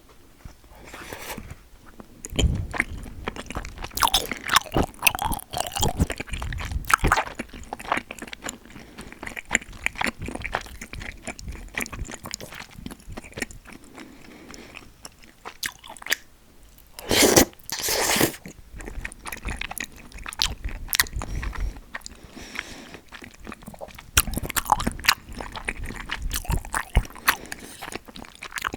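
Close-miked eating sounds: a person biting, crunching and chewing food in a steady string of sharp crunches, with a couple of louder bursts of crunching past the middle.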